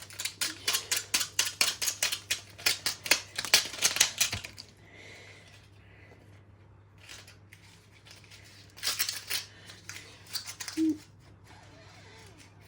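Rapid run of sharp clicks and cracks for about four seconds, then two shorter bursts later on: a small washing machine being broken apart.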